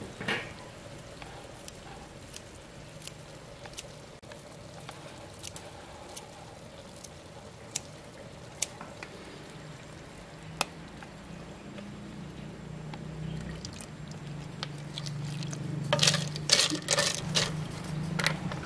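Liquid poured from a carton into a metal cooking pot of clams, with scattered small clicks of utensils. A low steady hum comes in after about ten seconds, and near the end a burst of louder clicking and clattering.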